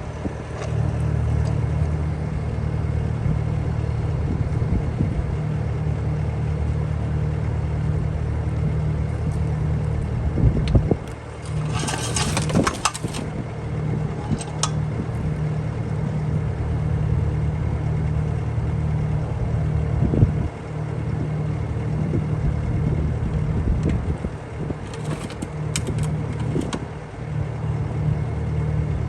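Bobcat skid steer's engine running steadily, with two brief high-pitched bursts of noise, one about twelve seconds in and one about twenty-five seconds in.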